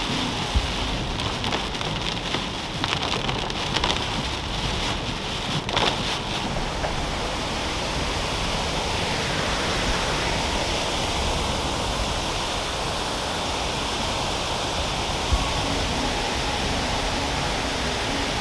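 Heavy rain drumming on a car, heard from inside the cabin, with a crackle of drops hitting the glass. After about seven seconds it gives way to the smoother, steady rush of a swollen waterfall mixed with rain.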